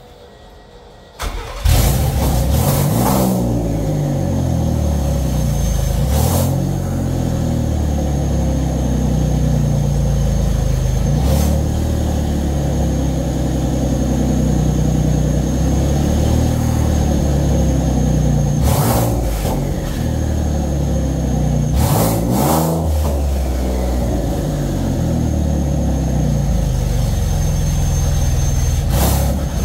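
Ford 3.5 L EcoBoost twin-turbo V6 is cranked and catches about a second and a half in, then runs steadily, its note rising and falling briefly a handful of times. It is running on its second start after fixes to the variable cam timing and fuel supply, and the owner judges that it idles properly and sounds pretty good.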